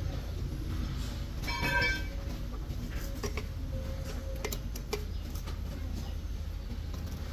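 A chicken gives one short call about a second and a half in, over a steady low rumble. A few light clicks follow.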